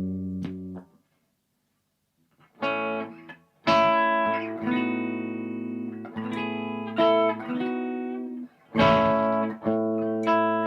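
1989 Gibson SG Custom electric guitar, chords struck and left to ring, played as it is before a setup. The chords stop for about a second and a half near the start, then come again, struck several more times.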